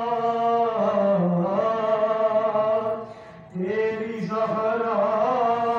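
A man's voice chanting a noha, a Shia lament in Urdu, into a microphone. He holds long, slowly bending notes and breaks off briefly about three seconds in, as if for breath, before going on.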